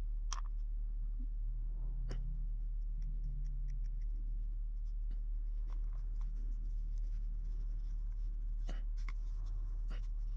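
Sculpting tool scraping and tapping on a small piece of modelling clay: a run of faint scratches and light ticks, a few a little sharper than the rest. A steady low hum sits under it throughout.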